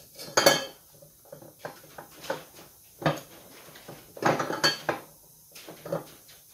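Steel mulching mower blade clanking against the steel deck and spindle as it is fitted back on by hand: a run of irregular metallic knocks and scrapes, the loudest about half a second in and a cluster around four and a half seconds in.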